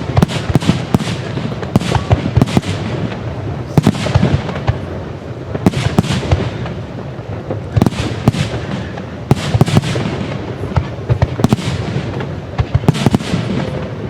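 Aerial fireworks display: a rapid, continuous barrage of shell bursts and booms, coming in denser volleys every couple of seconds over a steady crackle.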